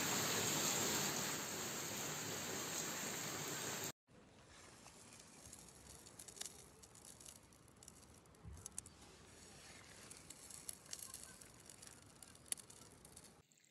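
Steady rush of a fountain's splashing water for about four seconds, cutting off abruptly. Then a much quieter stretch of small scattered clicks and patters as sand and small pebbles trickle from a hand onto a pebble beach.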